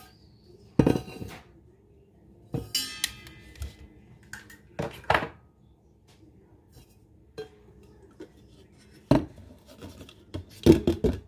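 Dishes and utensils being handled: scattered knocks and clinks, with a ringing clink about three seconds in.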